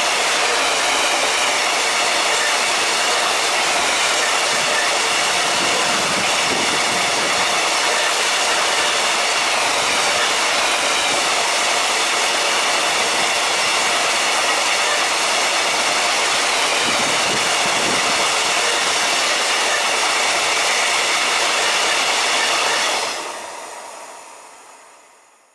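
Freight train of open coal wagons rolling past at speed: a loud, steady rush of wheels on rail with a faint held ringing in it. It fades away quickly near the end as the last wagon goes by.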